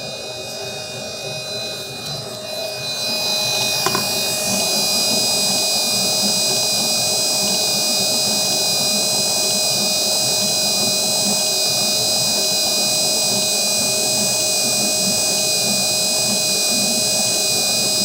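Vevor 7.4-quart stand mixer's motor running steadily with a whine as its spiral dough hook kneads a double batch of bread dough, smooth and without hesitating under the load. It gets louder about three seconds in, with a single click about a second later.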